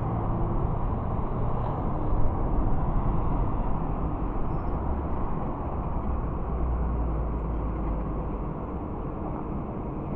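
Steady low engine rumble, a little louder about two seconds in.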